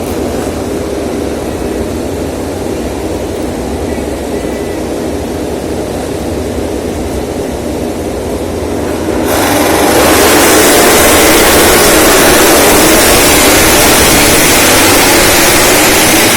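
MotoGP racing motorcycles on the starting grid: a steady low engine rumble, then about nine seconds in the field launches off the start and the sound jumps to a loud wall of many engines accelerating hard, with rising engine pitches.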